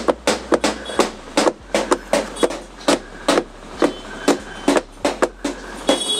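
A car's paper air filter element being knocked repeatedly against a hard surface, about three sharp knocks a second, to shake dust out of the choked filter.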